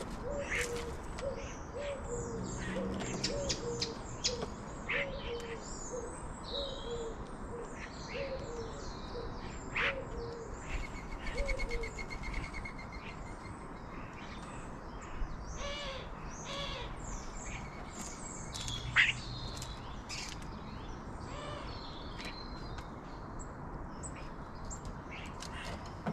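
Birds calling: a low hooting note repeated at an even pace for about the first twelve seconds, over scattered high chirps and twitters of small birds.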